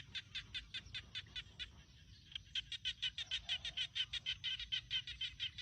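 Small animal calling in a rapid train of short, evenly spaced high chirps, about five a second, growing faster and louder about two seconds in.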